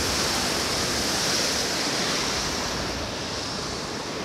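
Water rushing through the open paddles of a canal lock gate, a steady gushing that grows a little fainter near the end.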